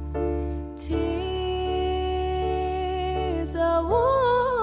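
Slow background song of long held chords, with a voice coming in on a rising sung note near the end.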